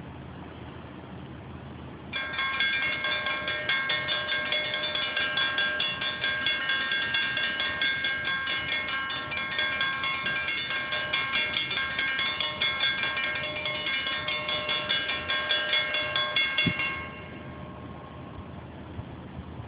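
Freight locomotive's multi-note air horn sounding at a grade crossing: a loud chord that starts suddenly about two seconds in, holds for about fifteen seconds with a fluttering level, and cuts off, over a low rumble.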